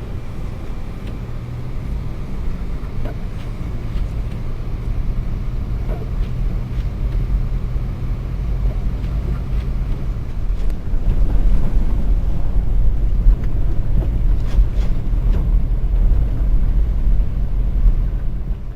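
A car driving on a snowy road: a steady low rumble of engine and tyres, growing louder about ten seconds in.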